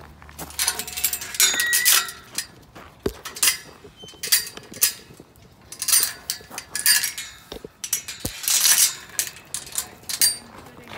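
Irregular metallic clinking and jingling, many small clinks close together with brief ringing, plus a few dull knocks.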